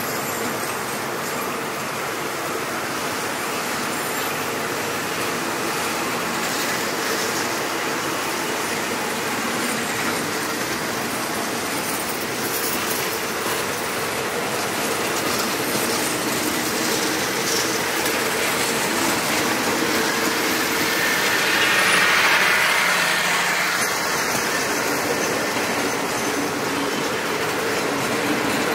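Passenger coaches of a train rolling slowly past along the platform, a steady rumble of wheels on rail that grows briefly louder about three-quarters of the way through.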